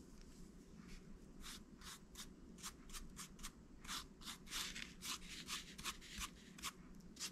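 Wide paintbrush dabbing and scrubbing paint onto a textured, rough-surfaced piece: a faint run of quick scratchy brush strokes, about three a second, starting a second or so in.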